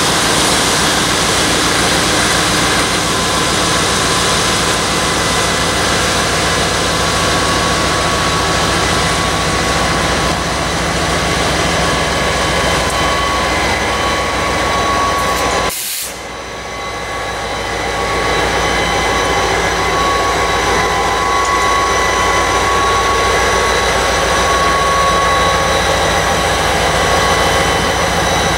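CSX work train rolling slowly by with its Jordan spreader ditching: steel wheels on rail and the ditcher wing scraping and throwing ballast and dirt along the trackside, with steady high-pitched whining tones over the rumble. The sound dips briefly about halfway through, and a diesel locomotive's engine joins near the end as it comes alongside.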